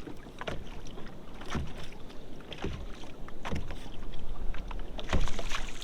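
Water slapping and splashing against a kayak's hull in irregular strokes about a second apart, over wind noise on the microphone.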